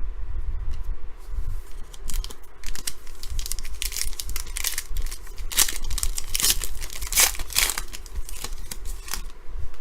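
Plastic trading-card pack wrapper being torn open and crinkled by hand, a run of sharp crackles that is densest in the second half.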